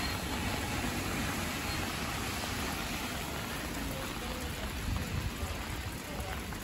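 Steady rain falling, pattering on wet pavement and roofs.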